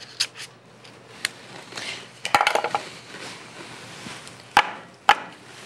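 Metal batter scoop and metal muffin tins knocking and clicking as batter is portioned into paper muffin cups: a few separate sharp knocks, the two loudest near the end.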